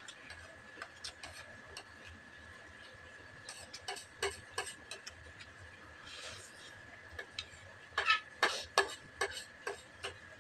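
Spoons clicking and scraping against ceramic plates and a bowl while eating: scattered light clinks, with a quicker run of louder ones about eight seconds in. A short slurp about six seconds in, over a faint steady high tone.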